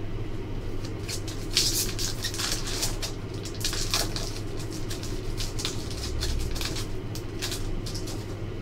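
Foil wrapper of a hockey card pack being torn open and crinkled in the hands, a quick run of sharp crackles, over a steady low hum.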